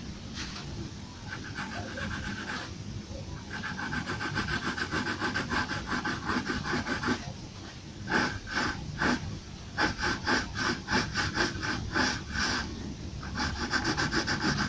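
Pencil scratching across paper in quick back-and-forth shading strokes, coming in several runs that grow stronger from about eight seconds in.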